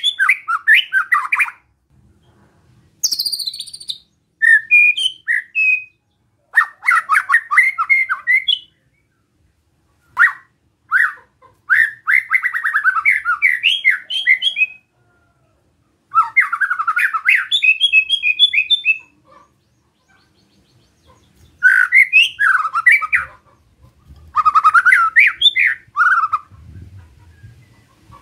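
White-rumped shama singing in short bursts of harsh, rasping 'besetan' notes, with a higher clear whistle about three seconds in. The phrases are one to three seconds long, with brief pauses between them.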